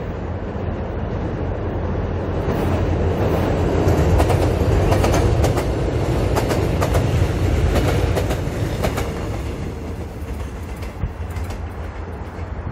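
Mugunghwa-ho passenger train passing close by, its wheels clacking over the rail joints in a quick run of clicks. The sound builds to its loudest as the coaches go past, then fades as the train moves away.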